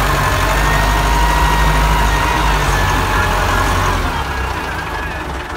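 IMT 577 tractor's diesel engine running steadily while pulling a disc harrow, heard from inside the cab. About four seconds in, the engine sound drops and gets quieter.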